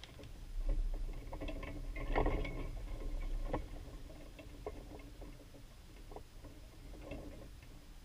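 Wind buffeting the camera's microphone, with a scattered run of light knocks and clicks from tennis balls being hit and bouncing on a hard court. The loudest knocks come about two and three and a half seconds in, and the rumble eases after that.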